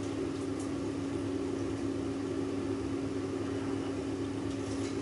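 Steady hum of an Andrew James halogen oven's fan running, one constant low tone over a faint hiss, with a couple of faint light taps of a saucepan lid.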